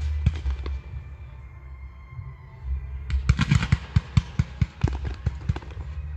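Fireworks going off: a few sharp bangs at the start, a lull, then a fast run of bangs and crackle from about three seconds in.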